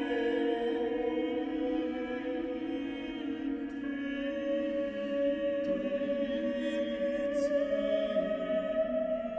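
Vocal ensemble singing a slow polyphonic passage of the Communio from a contemporary Mass setting: several voices hold long sustained notes that shift slowly against one another.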